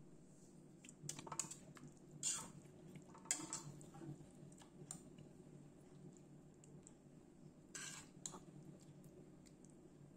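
Metal spoon scraping and clinking against a stainless-steel pot and pan as thick chickpea curry is scooped and ladled across. There are about five scattered clinks, most in the first few seconds, over a faint steady hum.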